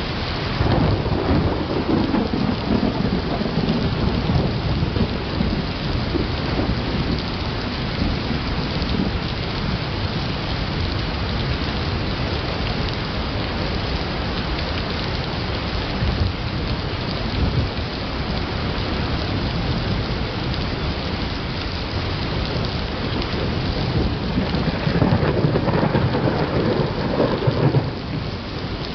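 Thunderstorm: steady heavy rain hissing, with rolls of thunder rumbling low for a few seconds at the start and again near the end.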